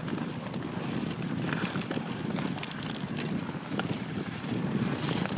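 Dog sled moving over packed snow behind running huskies: a steady rushing noise from the sled runners and wind on the microphone, with a few light clicks.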